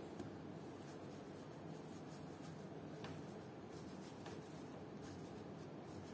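Faint rubbing and brushing of a hand across a pastry board, with a few light taps, over a steady low hum.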